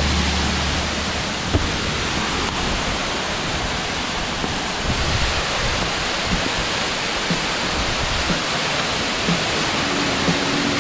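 Steady, loud rush of falling and running water close by.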